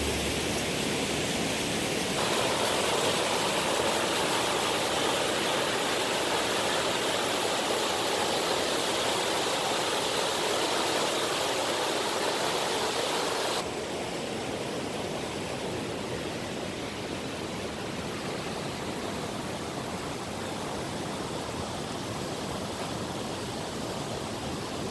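Rushing creek water, a steady rush that changes character abruptly about two seconds in and drops a little in level past halfway.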